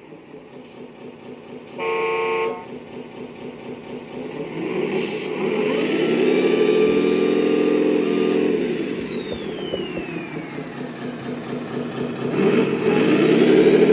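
RC dump truck's electronic sound module: a short horn blast about two seconds in, then simulated diesel engine sound revving up, holding, and winding down with a falling whistle, before revving up again near the end.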